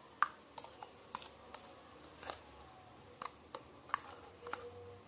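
Metal spoon stirring a wet garlic paste in a thin clear plastic bowl: about a dozen light, irregular clicks and taps of the spoon against the bowl.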